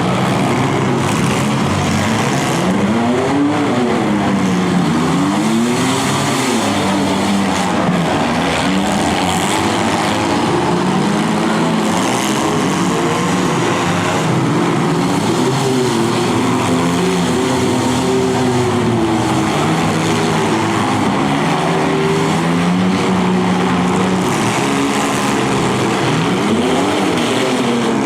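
Demolition derby car engines revving, several at once, their pitch climbing and falling over and over.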